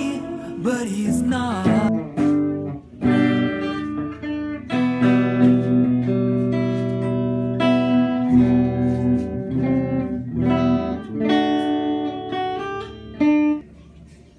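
Clean electric guitar played through an amplifier: picked notes and chords that ring and sustain, dropping away in the last second.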